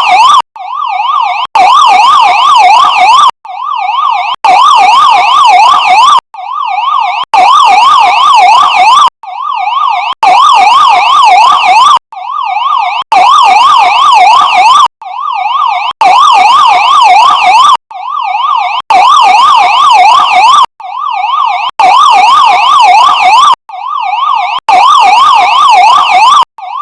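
Loud electronic police siren with a fast up-and-down warble. It comes in bursts of one to two seconds separated by short silent gaps. A shorter burst that swells in is followed by a longer one, and the pattern repeats about every three seconds.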